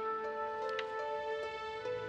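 Background music: soft, slow sustained notes that step from one pitch to another.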